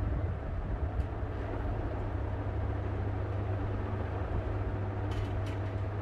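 Vintage Mistral 48-inch three-blade ceiling fan running at speed: a steady low motor hum with the whoosh of the blades and a faint steady tone above it. A couple of faint ticks about five seconds in.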